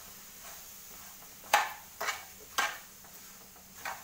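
Metal spoon knocking against a nonstick pan while stirring chopped mango and sugar: four sharp knocks, the first about a second and a half in, then roughly half a second apart, with a longer gap before the last.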